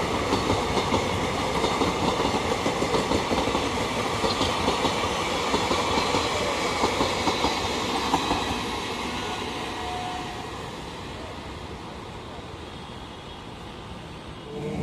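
Train passing at speed, its wheels clattering over the rail joints; the sound fades away over the last few seconds.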